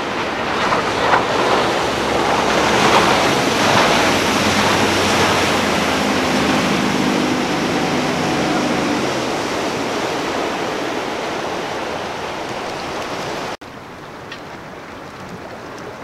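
Rushing, splashing water from a fast powerboat's wake and the surf, with a boat engine's drone coming through for a few seconds in the middle. About three-quarters of the way in, the sound cuts off abruptly to a quieter wash of water.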